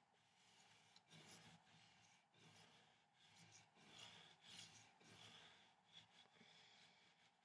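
Faint, repeated scratching of a coloured pencil shading back and forth on paper, in short strokes.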